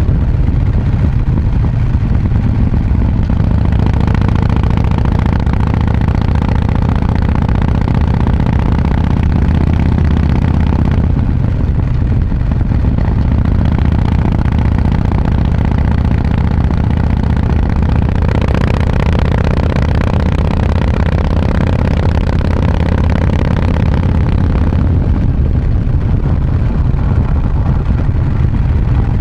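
A 2019 Harley-Davidson Breakout's V-twin, with an S&S 475 cam and Vance & Hines exhaust with quiet baffles, running under way with a loud, steady, deep exhaust note. The pitch shifts slightly around a third of the way in and rises a little past the middle.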